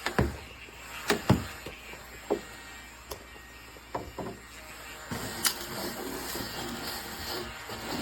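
Small battery-powered mini desktop vacuum cleaner whirring, with several sharp knocks and clicks of the plastic unit being handled and set down; the whirr grows louder about five seconds in.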